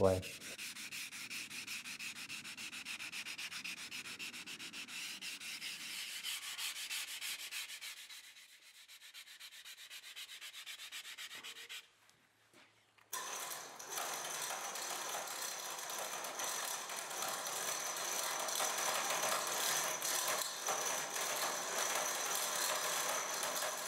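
Hand sanding of a carved stone surface with an abrasive pad: quick, even rubbing strokes. About twelve seconds in it stops dead for a second, then a steadier scratchy rubbing hiss carries on.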